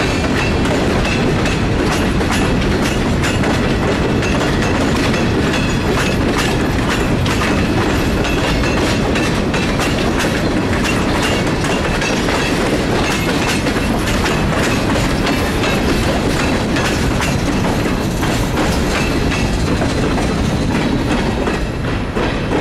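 Freight cars rolling past close by, steel wheels clicking over rail joints in a continuous clatter. The last car goes by near the end.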